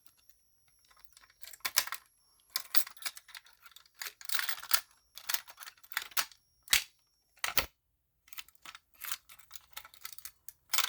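Irregular clicks, knocks and short rustles from hands handling a fire alarm pull station setup. A faint high steady whine runs through most of the first seven seconds, breaking off briefly near two seconds.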